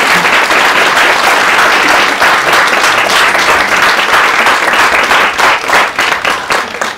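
Audience applauding, a dense patter of many hands clapping that dies down at the very end.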